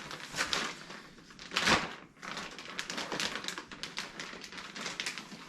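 Plastic packaging of a pack of curtains crinkling and crackling as it is handled and opened: a run of sharp clicks, with one louder crackle a little under two seconds in.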